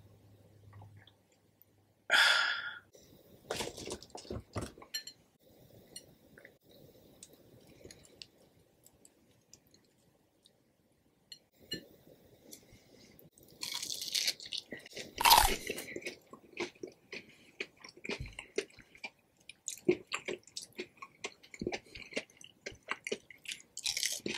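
Close-miked eating: a short sip through a straw about two seconds in, then, after a quiet stretch, crunchy bites into breaded fried Spam fries dipped in cheese sauce, the loudest crunch about halfway through, followed by steady chewing and crunching to the end.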